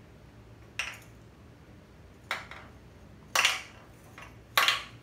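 Four sharp metallic clinks, each ringing briefly, the last two the loudest, from the crankshaft and cam gear being rotated by hand in an open VW 1600 crankcase half to check the cam timing.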